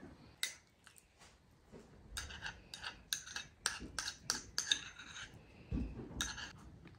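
Small glass bowl clinking repeatedly, about three sharp ringing clinks a second for a few seconds, as tomato paste is scraped and knocked out of it onto rice in a steel bowl; a dull thump follows near the end.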